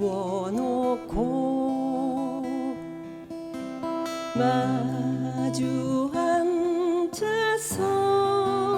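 Acoustic guitar strumming chords to accompany a singer holding long notes with vibrato, in a slow folk song.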